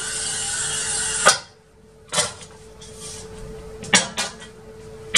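Toyo oil-fed glass cutter scoring a 12 mm glass sheet along a straightedge: an even scratching hiss for about a second, ending in a sharp click. A few separate sharp clicks and knocks follow.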